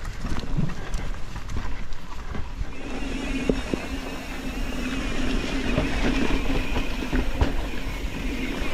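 Mountain bike rolling fast down a dirt singletrack: tyres running over dirt and leaves, the bike rattling and knocking over bumps, and wind rumbling on the microphone. From about three seconds in, a steady buzz joins: the rear hub freewheeling as the rider coasts.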